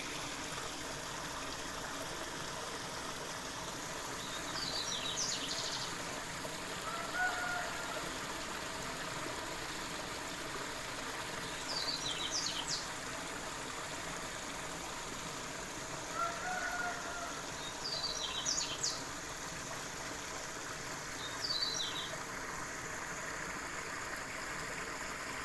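Steady rushing of running water from a small stream, with birds calling over it: four short clusters of high chirps and two brief lower whistled notes.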